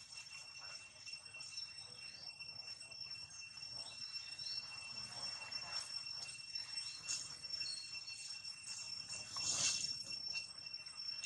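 Steady high-pitched drone of insects, several thin unbroken tones, over soft scattered crackling, with a brief louder rustle about nine seconds in.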